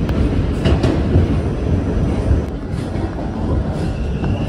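R46 subway car heard from inside, running along the track with a steady low rumble and the click of wheels over rail joints; a thin high squeal begins near the end.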